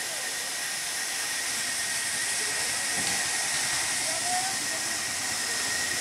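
Steady high-pitched hiss with a thin, steady whine running through it.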